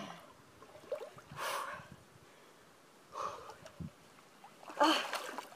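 A woman's sharp gasping breaths as she wades into icy snowmelt lake water, the cold taking her breath. There are about four gasps, the loudest near the end.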